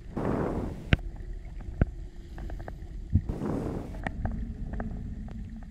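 Underwater ambience picked up by a camera in open water: a steady low water rumble with scattered short clicks and two swelling rushes of water, about a second long each, near the start and a little past the middle.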